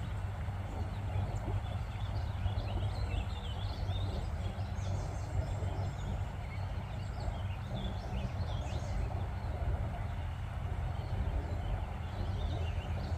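Small birds chirping in short, quick high calls in scattered clusters, over a steady low rumble.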